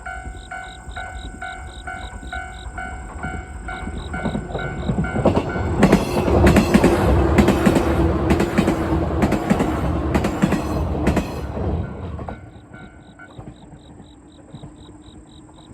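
Japanese level-crossing warning bell ringing its rapid, evenly repeated electronic clang. From about five seconds in, an electric train passes over the crossing, loud, its wheels clacking over the rail joints for about seven seconds. The bell is heard again after the train has gone.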